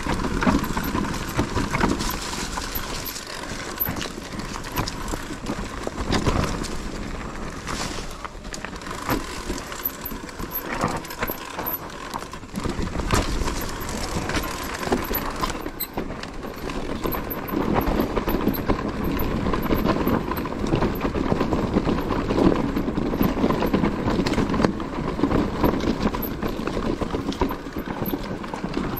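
Mountain bike being ridden over a rough trail: tyre noise on dirt and stones with frequent irregular knocks and rattles from the bike, getting louder about halfway through.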